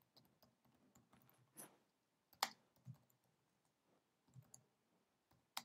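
Faint, scattered clicks of a computer keyboard and mouse, about half a dozen over a few seconds, as a build command is entered in a terminal.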